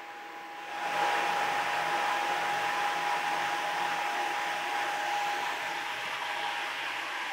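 Cylinder head resurfacing machine running with a steady whine. About a second in, a louder, steady hiss of cutting starts as the cutter takes a light skim off the deck of the 6.7L Cummins cast-iron head.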